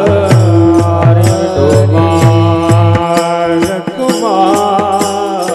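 A Marathi devotional abhang sung to instrumental accompaniment. A voice glides in pitch over a steady held note and a regular percussion beat, and the low bass notes drop out about three seconds in.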